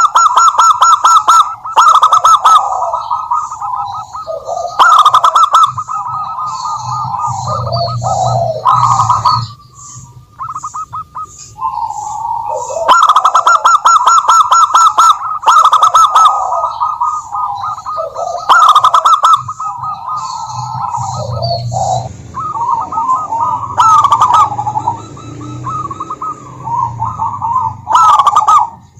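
Zebra doves (perkutut) cooing in repeated rolling phrases, loud and close, with a short break about ten seconds in.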